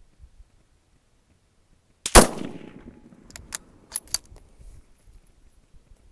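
A single shot from a Stevens 200 bolt-action rifle in .223 firing a handloaded test round, about two seconds in, its report dying away over about a second. About a second later come four sharp metallic clicks of the bolt being worked.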